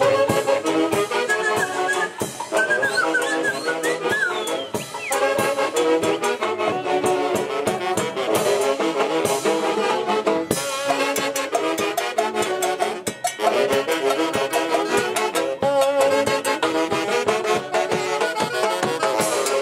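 Festive dance-band music with horns playing the tune over a steady beat.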